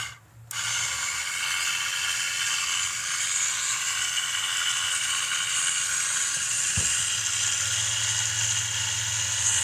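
Small belt-driven STO lathe, fitted with a floating-gear spindle, running on its YUGOS electric motor: a steady whine with many high tones. It cuts out for about half a second at the start as the rocker switch is pressed, starts again, and runs until the end, with one light click about seven seconds in.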